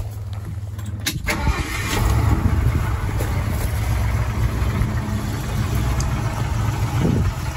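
A 1977 Ford F-100's 302 V8 starting: it cranks, catches about a second in, comes up louder briefly, then settles into a steady idle.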